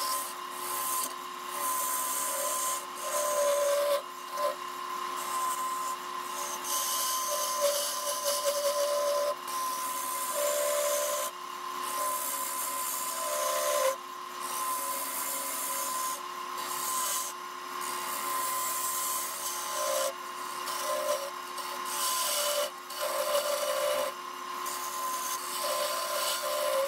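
Wood lathe running with a steady whine while a bowl gouge cuts dense mesquite in bulk removal passes. The scraping hiss of the cut swells and drops with each pass.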